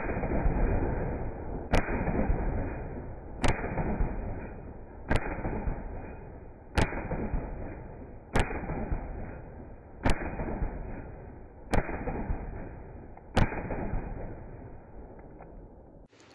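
Nine shots from a semi-automatic 12-gauge shotgun firing low-brass target loads, evenly spaced about a second and a half apart. Each report trails off in a long echo before the next.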